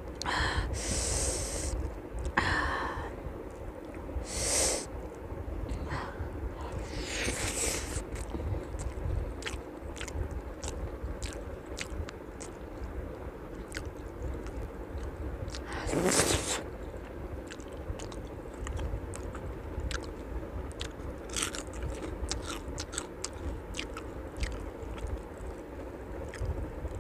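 Close-miked eating: chewing and wet mouth sounds with many small clicks, and a few louder, longer mouth noises in the first several seconds and once about sixteen seconds in.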